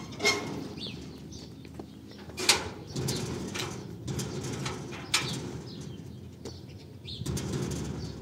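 Large sheet-metal yard gate being worked by hand: a few sharp metallic knocks and rattles, the loudest about two and a half and five seconds in. Short bird chirps sound between them.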